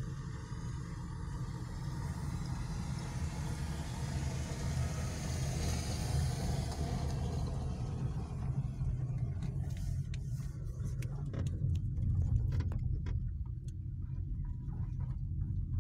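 Car driving slowly over a rough gravel and potholed road, heard from inside the cabin: a steady low rumble, with a hiss from the tyres on the loose surface that swells and then fades about halfway through. From about nine seconds in, a scatter of sharp clicks and knocks follows as the car crosses the broken surface.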